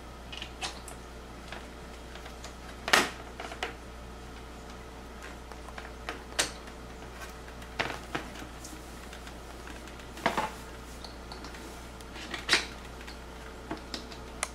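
Plastic toilet-seat hinge parts clicking and knocking as they are handled and snapped into place: scattered sharp clicks, the loudest about three seconds in, over a faint steady hum.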